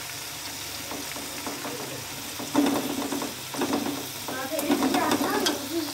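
Mutton and onions sizzling as they fry dry in a steel pot, stirred and scraped with a metal spoon; the meat is being browned before any water goes in. A voice talks indistinctly twice, briefly midway and again near the end.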